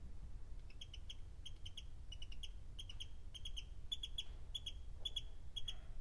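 Baby poultry peeping softly, short high peeps in quick twos and threes, over a low steady hum.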